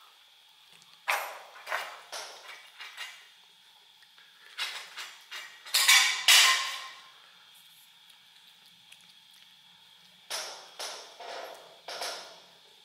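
Kittens eating wet cat food from a small metal tin: bursts of short smacking and clicking as they lick and chew, with the tin clinking and knocking, and quieter pauses between the bursts. The loudest cluster comes about halfway through.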